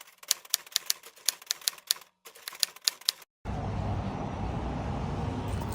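A quick run of sharp clicks, about five a second, like typewriter keys, for about three seconds; then a steady low rumble starts suddenly.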